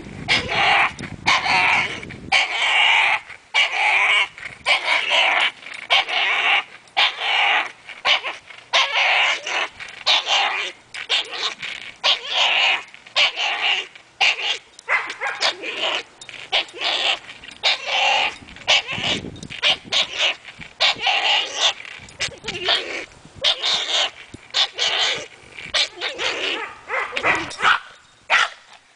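French bulldog making quick, repeated noises with its voice, two or three a second, while it hangs and swings from a rope by its teeth.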